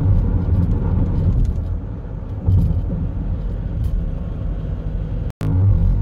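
Steady low rumble of a car driving at highway speed, heard from inside the cabin: engine and tyre road noise. It cuts out completely for a split second about five seconds in.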